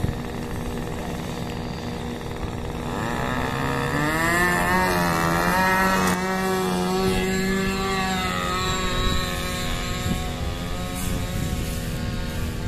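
RC Mustang model plane's OS engine and propeller: it runs low at first, then about three seconds in the pitch climbs steeply as the throttle is opened for the takeoff roll. The engine holds a high steady whine, then its pitch slides lower toward the end as the plane flies off into the sky.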